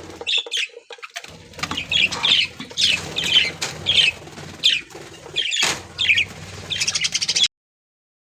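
A flock of budgerigars chirping and chattering, many short calls in quick succession, which cuts off suddenly about seven and a half seconds in.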